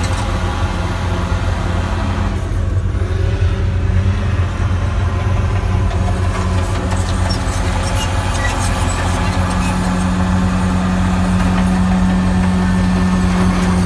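Heavy equipment engines running steadily, a low droning hum heard through a machine's cab window; the engine note grows stronger about nine seconds in.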